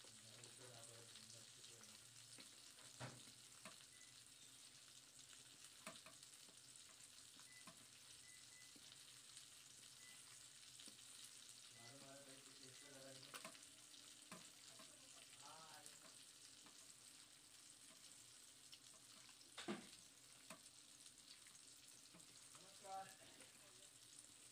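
Faint sounds of hands mixing spice-coated fish pieces in a steel plate, with a few soft clicks of fingers and fish against the metal, the sharpest about 20 seconds in, over a steady faint hiss.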